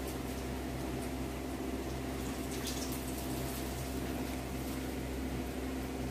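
A steady low hum runs throughout, with a faint rustle about two and a half seconds in as the leaf plug is worked out of the mouth of a roasted bamboo tube.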